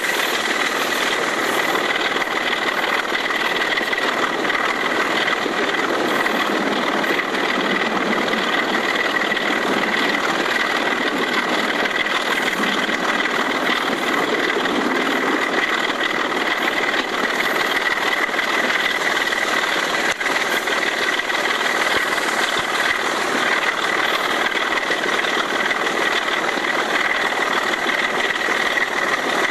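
British Rail Class 25 diesel locomotive's Sulzer 6LDA28 six-cylinder engine working flat out at full power on a climb, heard as a steady, loud, unbroken engine sound. A steady high whine runs through it.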